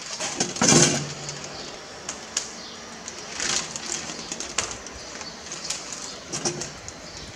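Handling sounds from loading pork knuckles onto a metal rotisserie spit on a wooden cutting board: the spit and its prong fork knock and scrape as meat is pushed on. The loudest knock comes just under a second in, with further knocks and scrapes later.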